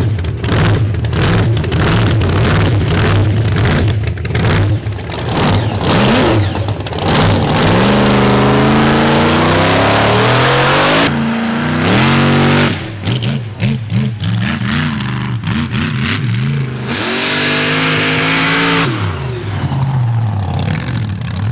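Monster truck engine running loud with a rapid, pulsing beat, then revved several times, its pitch climbing and dropping back.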